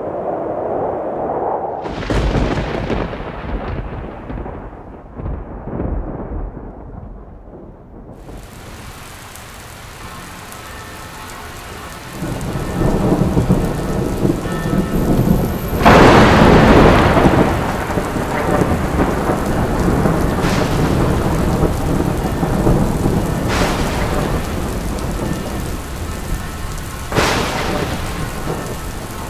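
Thunderstorm: thunder rumbles twice, then rain sets in with a steady hiss that grows louder. The loudest thunderclap comes just past halfway, followed by several sharper cracks of thunder over the rain.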